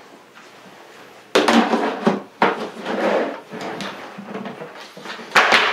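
Plastic lid being put onto a plastic bucket and pressed down: scraping and knocking of plastic on plastic starting about a second and a half in, with the loudest push near the end.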